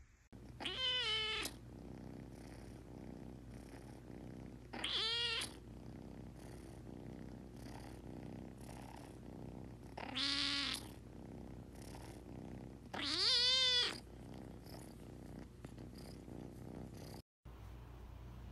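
Kittens meowing: four high meows spaced a few seconds apart, each under a second long, over a steady purr.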